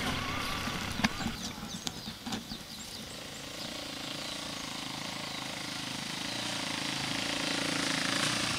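Dirt bike engine running as the bike comes down a muddy track towards the listener, growing steadily louder from about three seconds in. A few scattered clicks and knocks come before it.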